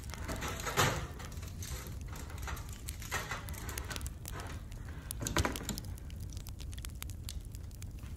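A metal baking tray being slid out of an oven by a hand in a cloth: a few short scraping, rattling noises, the loudest about a second in and others around three and five seconds in, over a low steady hum.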